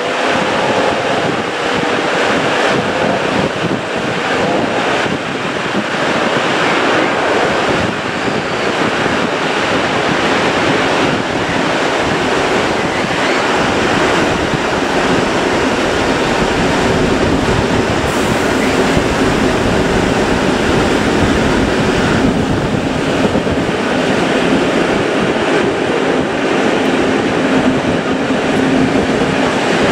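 Train running: loud steady noise, with a low hum that grows stronger in the second half.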